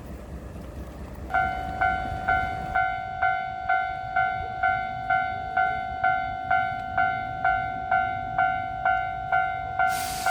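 Japanese level-crossing alarm starts ringing about a second in, a pealing electronic ding repeating about twice a second, warning that a train is approaching. It rings over a low traffic rumble, and a hiss comes in near the end.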